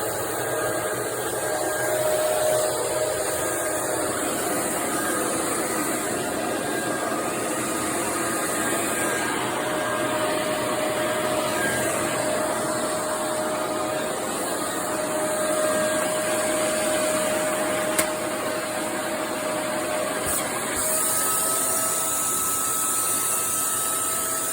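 Shark Navigator Lift-Away upright vacuum cleaner running steadily, its motor giving a constant whine over the rush of air. A single sharp click about 18 seconds in, and the motor note shifts slightly a few seconds later.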